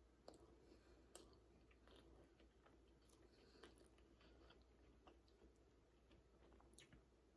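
Faint chewing of a soft chicken taco with coleslaw: scattered soft mouth clicks and wet smacks, one slightly louder click near the end.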